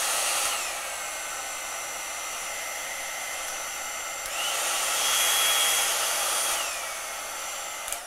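Imitation Revlon One-Step hot-air dryer brush running and switched between speeds. Its motor whine and airflow drop in pitch and level about half a second in, rise again just past the middle, drop again near the end, then stop. The drop from the lowest setting to medium makes it quieter: the medium speed sounds quieter than the lowest, the opposite of what its labels promise.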